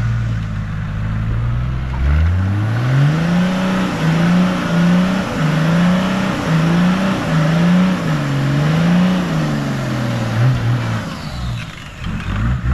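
A 4WD's engine revving hard under load, its pitch climbing about two seconds in and then surging up and down over and over before dropping back near the end: a vehicle bogged in beach sand being driven to get free.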